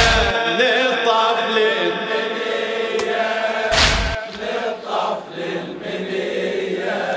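A group of men chanting a mournful Shia latmiyya refrain in unison, slow and drawn out. A deep thump comes at the start and again about four seconds in, in time with the chant.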